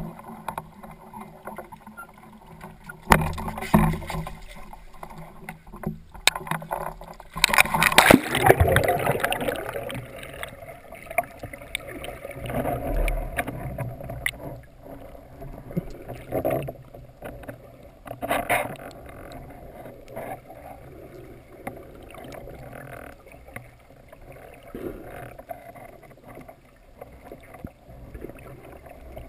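Water sloshing and splashing around a diver at the surface, with a loud splash about eight seconds in as he dives under. Then muffled underwater water noise with occasional knocks.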